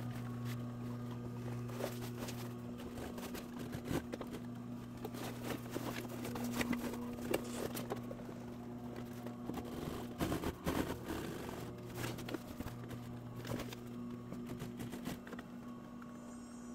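Industrial sewing machine stitching a clear vinyl window into a vinyl convertible soft top: a steady hum under a run of quick needle clicks, with brief breaks in the hum.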